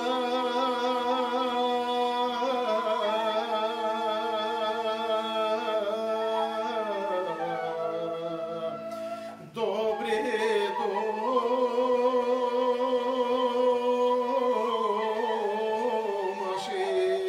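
Bulgarian folk music: a slow, free-rhythm melody wavering with vibrato and ornaments over steady held drone notes. It breaks off briefly about halfway through, then resumes.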